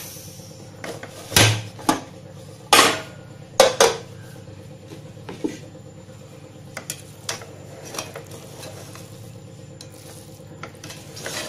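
Metal pressure cooker being opened: a few sharp metallic clanks from the lid in the first four seconds, then lighter clicks and scraping as a spoon stirs the cooked rice in the pot.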